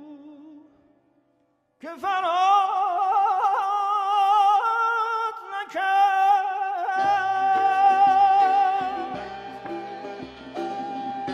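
Music: one piece fades out, there is a short gap, then a new piece begins about two seconds in with a solo melody line in strong vibrato. Around seven seconds in, instruments join with a low, pulsing beat.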